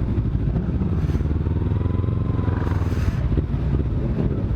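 Kawasaki Z300's parallel-twin engine running steadily at low revs, with a faint whine that rises and falls around the middle.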